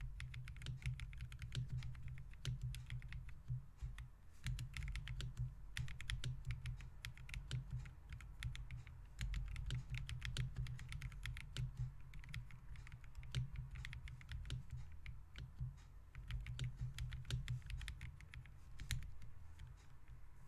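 Typing on a custom 65% mechanical keyboard, a Fancytech Origin65A fitted with Akko CS Snow blue grey switches: a fast, irregular stream of key clacks with short pauses between bursts.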